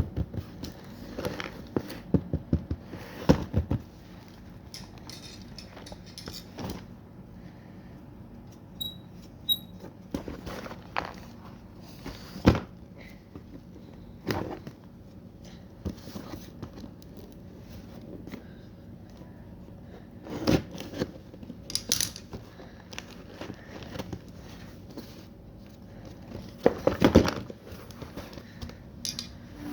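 Packaging and kit items being handled during unboxing: scattered knocks and taps with bursts of crinkling and rustling, in irregular clusters.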